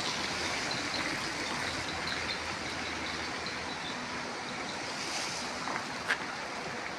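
Steady rushing outdoor noise with no clear source, most like running water, with a faint high tone and one short click about six seconds in.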